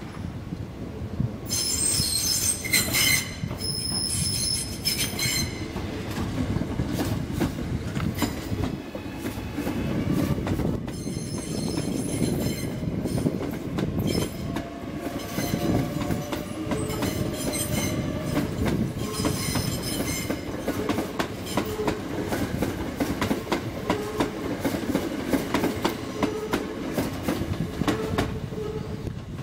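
Great Northern electric multiple unit running past at close range, its wheels clattering over rail joints. Bouts of high-pitched wheel squeal come about two seconds in, again around a third of the way through, and once more past the middle.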